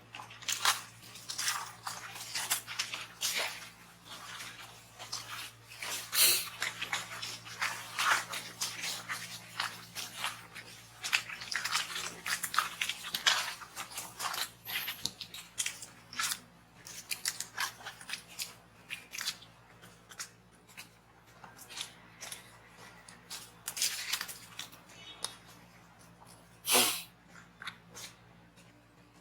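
A monkey eating, with irregular clicking, crunching and mouth-smacking sounds, some louder than others, over a steady low hum.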